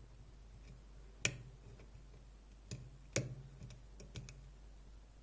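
Lock-picking tools in a DOM iX6SR dimple lock cylinder: a handful of sharp metallic clicks at irregular spacing, the loudest about a second in and just after three seconds, as the pins are worked.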